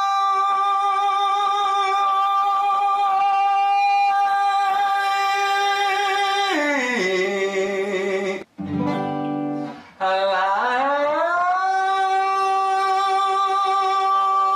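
A man's voice singing a vocal exercise on a wide-open vowel, with acoustic guitar. He holds a long steady high note, slides down about an octave, and after two brief breaks in the sound slides back up and holds the high note again.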